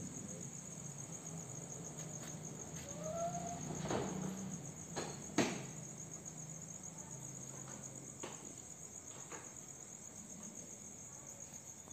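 Insects chirring steadily in a high, pulsing drone, with two sharp clicks around the middle, the second and louder one about five and a half seconds in.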